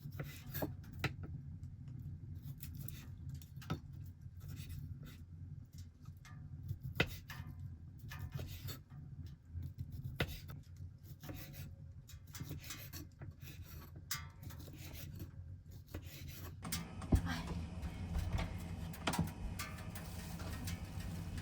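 Cooking preparation by hand: scattered clicks, taps and rubbing of utensils and ingredients over a low steady hum, busier from about three-quarters of the way in.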